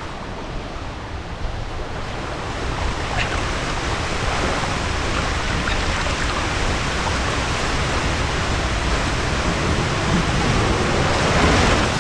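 Water rushing along a waterslide flume as a rider slides down it: a steady wash of noise that grows a little louder near the end as he splashes into the water at the bottom.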